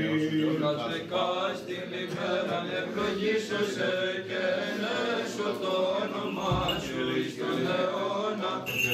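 Men's voices chanting a Byzantine hymn in Greek Orthodox style, unaccompanied, with a low note held beneath the melody for most of the passage.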